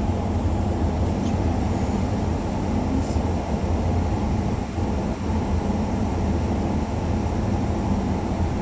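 Steady road and engine noise heard inside a moving car's cabin: an even low rumble with a faint hiss above it.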